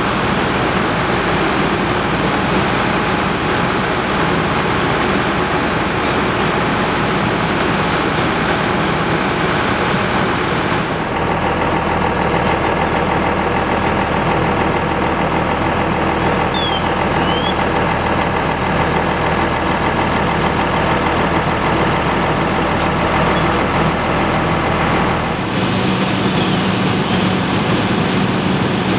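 Steady rumble of fire trucks' diesel engines running, their sound shifting abruptly about a third of the way in and again near the end.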